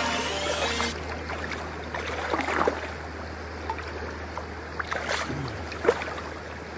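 Shallow river running steadily over gravel, with a few short splashes as a landed rainbow trout thrashes in the water at the bank.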